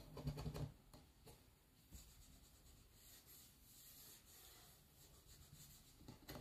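Near silence: faint room tone, with a brief soft rustle in the first second.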